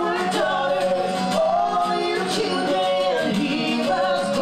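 Live country song: a man sings into a microphone over a strummed acoustic guitar.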